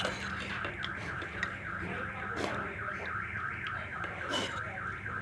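A rapidly repeating warbling tone, about five pulses a second, over a steady low hum, with a couple of sharp clinks of metal cutlery against a cast-iron pan.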